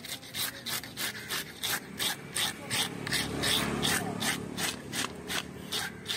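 Hand fish scaler scraping the scales off a large barrier trevally in quick, even strokes, about four rasping scrapes a second.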